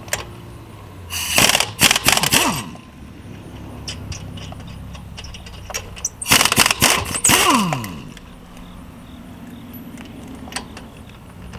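DeWalt pneumatic impact wrench, set to its lowest power, hammering lug nuts loose on a car wheel. It fires in two bursts of rapid blows, each about a second and a half long, and each ends in a falling whine as the air motor spins down.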